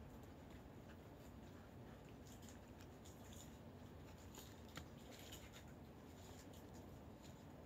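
Near silence with faint, scattered crunches and clicks of cats eating dry kibble, with one sharper click near the end.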